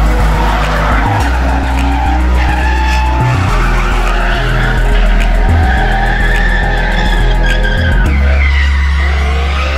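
Drift cars sliding through a bend, engines revving hard at high rpm and tyres squealing, over background music with a heavy bass line.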